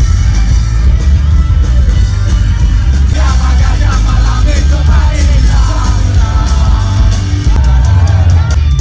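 Live indie rock band playing loud, with heavy drums, bass and electric guitars. A voice sings and shouts over it from about three seconds in until near the end.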